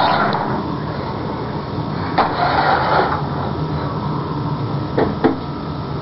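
Small electric motor of a toy radio-controlled car whirring, with a few sharp clicks.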